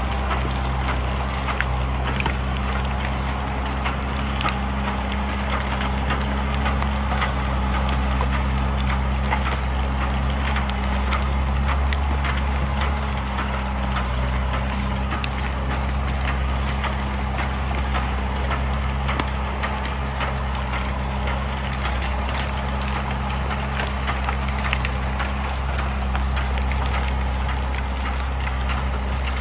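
Engine of a manure-spreading rig running steadily at a constant note, with a continuous scatter of small clicks and ticks as chicken manure is thrown out.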